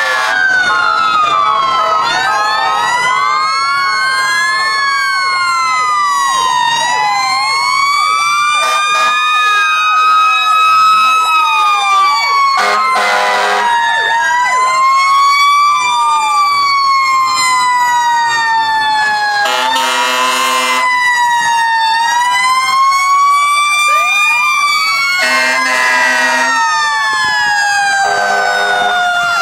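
Several fire truck sirens wailing at once, their pitches rising and falling and overlapping. Three short, loud horn blasts cut in along the way.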